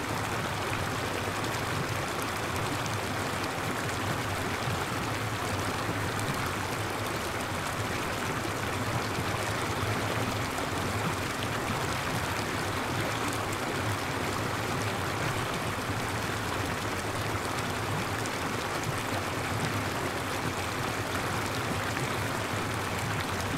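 Water showering down like heavy rain from a hose-fed artificial rain shower, a steady even hiss of falling drops.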